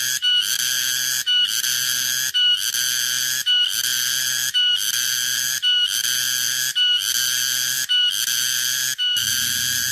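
Tonggeret (garengpung) cicada calling: a loud, shrill, buzzing call repeated in phrases about once a second. Each phrase opens with a short higher note and holds steady, with a brief gap before the next.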